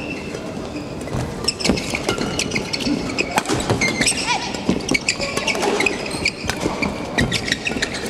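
Badminton rally: rackets striking the shuttlecock with sharp cracks, and court shoes squeaking on the floor. It starts about a second and a half in.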